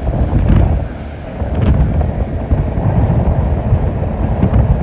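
Wind buffeting the microphone on a boat under way, over the low rumble of the boat running across open water. The buffeting dips briefly about a second in.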